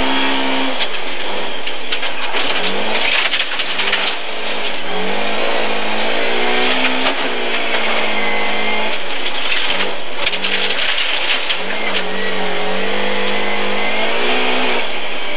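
Rally car engine heard from inside the cabin, revving hard and climbing in pitch, then dropping back, about four times, as the car is driven flat out. Steady tyre and gravel noise from the loose road runs underneath.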